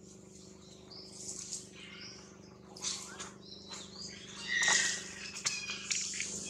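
Several short, high-pitched animal squeaks and chirps, the loudest just before five seconds in, over a steady low hum.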